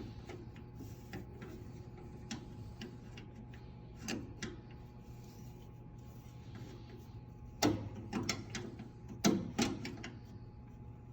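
Channellock tongue-and-groove pliers clicking against an IDEC push-button switch as it is tightened down, with scattered light clicks and a few sharper ones about four seconds in and again between eight and ten seconds.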